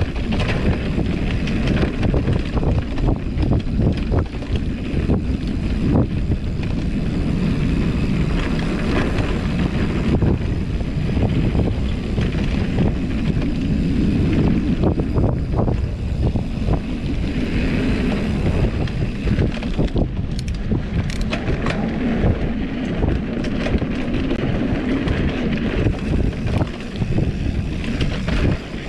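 Wind buffeting the microphone over the rumble of a GT Avalanche mountain bike's tyres on a rough dirt trail, with frequent knocks and rattles from the bike over the bumps, most clustered a little after two-thirds of the way through.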